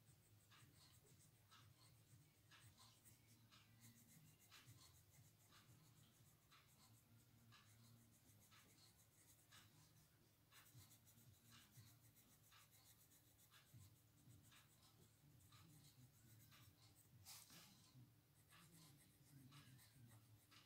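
Faint scratching of a coloured pencil on paper: short colouring strokes, about two a second, with one longer, louder stroke near the end.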